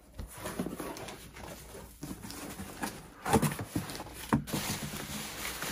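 Plastic bubble wrap crinkling and cardboard box flaps rustling as a packing box is opened by hand, with a few louder crackles a little past the middle.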